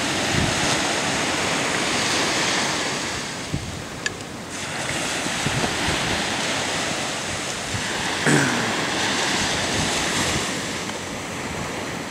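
Small waves breaking and washing up a sandy beach, with wind buffeting the microphone. A brief louder sound stands out about eight seconds in.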